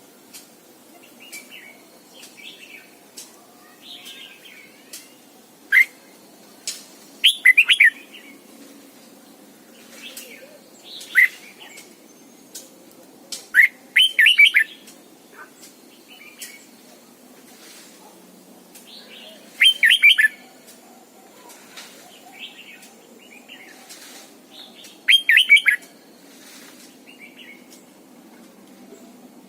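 Red-whiskered bulbul singing: short, loud warbled song phrases every four to six seconds, with softer chirps and calls in between.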